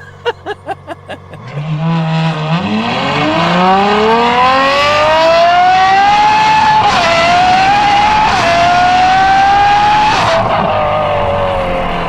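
Ferrari 812 Superfast's naturally aspirated 6.5-litre V12, breathing through an aftermarket Secret Apple exhaust, going from idle to full-throttle acceleration, with the revs climbing in a rising howl. There are two quick upshifts about seven and eight seconds in, then the driver lifts off and the revs slowly fall near the end. A few quick clicks come at the start, over the idle.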